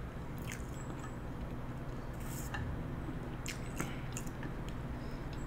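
Sipping through a straw from a tumbler, with swallowing and a handful of short wet mouth clicks and smacks over a steady low hum.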